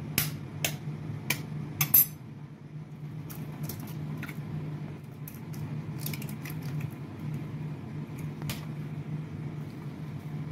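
Eggs cracked into a glass bowl: a few sharp taps of shell on glass in the first two seconds, the loudest just before two seconds in, then lighter clicks and crackles as the shells are pulled apart. A steady low hum runs underneath.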